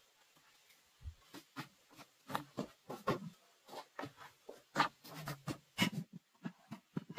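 Short, irregular knocks, taps and scrapes of stones and loose earth being pressed and set by hand into a small stone cooking hearth, with a lidded metal pot set down onto the stones near the end.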